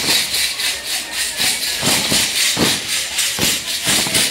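Many sonajas, the wooden rattles strung with metal jingles used in the sonajeros dance, shaken together in a quick steady rhythm. Irregular low thumps sound underneath.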